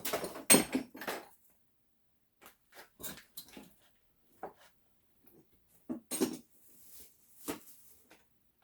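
Metal scrap parts clattering and knocking as they are handled and set down: a loud clatter at the start, then a few separate knocks spread through the rest.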